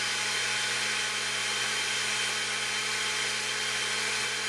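Countertop kitchen blender running steadily, its motor whirring as it blends kale, banana and strawberries into a smoothie in a glass jar.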